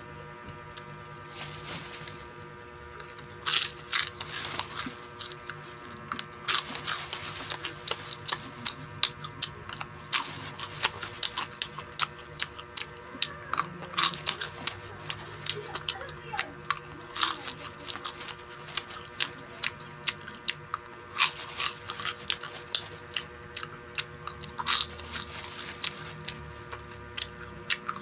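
Close-miked eating sounds: irregular sharp crunches and clicks of chewing and biting crunchy food, sparse at first and then several a second from about six seconds in, over a steady hum.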